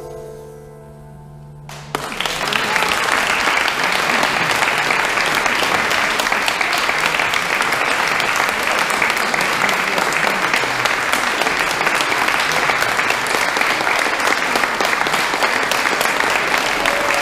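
The last chord of an a cappella vocal group dies away, and about two seconds in, audience applause breaks out and carries on steadily.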